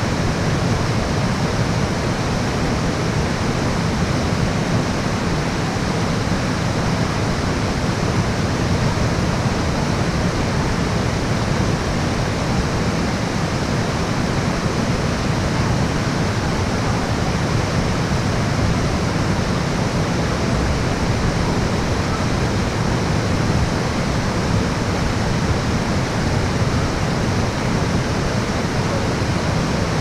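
Steady rush of water from a waterfall, loud and unchanging.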